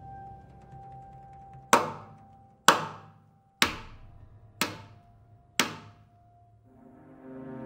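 Five sharp percussive hits about a second apart, each ringing out and dying away, over a faint, low sustained musical drone.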